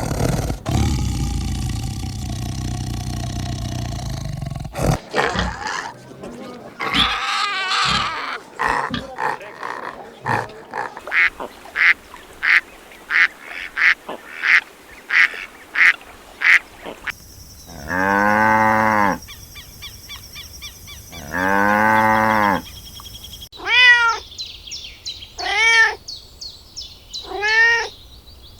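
A string of different animal calls, one after another. A noisy stretch comes first, then a run of short, evenly spaced high calls, two long low calls, and near the end several short calls that fall in pitch.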